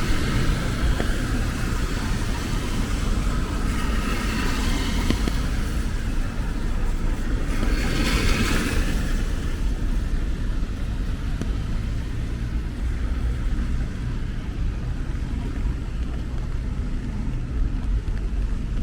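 Road traffic on a wet city street: a steady low rumble of vehicles, with one car's tyres hissing past on the wet road about eight seconds in.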